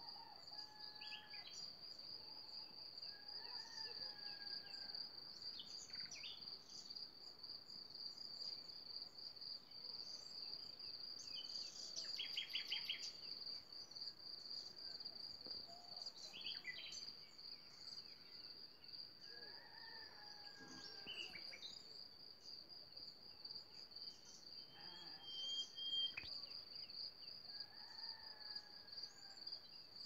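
Faint natural chorus: a steady, high-pitched insect trill with birds chirping and calling over it now and then, including a quick run of repeated notes about twelve seconds in.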